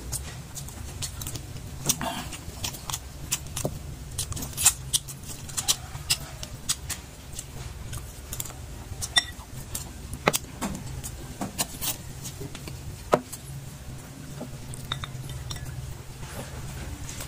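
Eating sounds: a metal spoon clinking against a glass bowl, and chewing, heard as scattered sharp clicks and clinks over a low steady hum.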